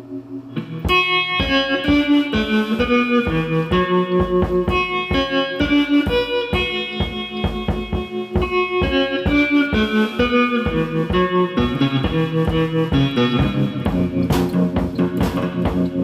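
Guitar music: a picked melody of plucked notes in a steady rhythm, starting about a second in.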